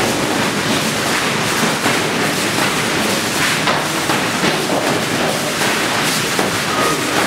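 Heavy battle ropes slapping the floor again and again during jumping jacks, heard over a steady noisy din.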